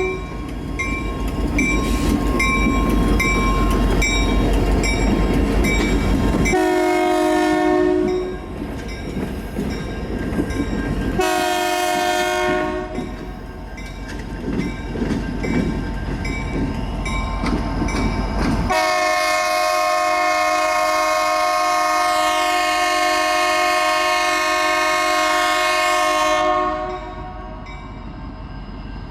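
Freight locomotives running light pass by, their multi-tone horn sounding a short blast at the start, more blasts about 6.5 and 11 seconds in, and then one long blast of about eight seconds. A heavy low rumble of the engines and the rails sits under the horn.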